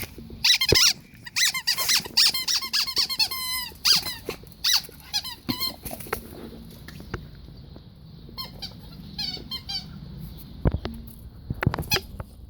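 Squeaky dog toy squeaking in quick runs of squeals as a Pekingese chews it, with a pause in the middle and a couple of dull knocks near the end.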